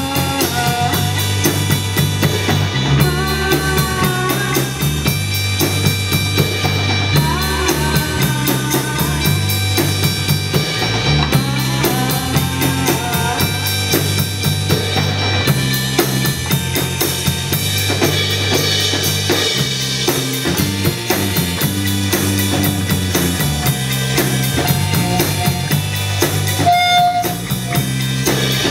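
Live band playing: a drum kit keeps a steady beat under bass notes and electric guitar, with gliding melodic lines over the top.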